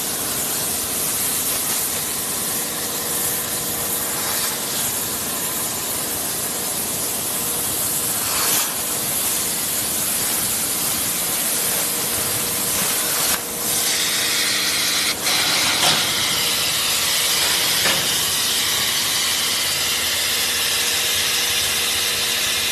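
CNC plasma cutter's torch cutting steel plate: a loud, steady hiss of the plasma arc and its gas jet. It is broken by a few short dips and clicks partway through, and a faint steady hum runs underneath.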